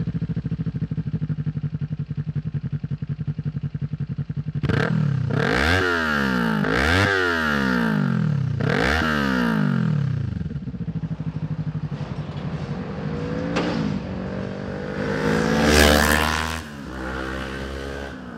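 Kawasaki Ninja 400 parallel-twin through an Arrow slip-on exhaust: steady idle, then three quick throttle blips, each rising and dropping straight back to idle. Later the bike accelerates, the note climbing to its loudest about sixteen seconds in, then easing off.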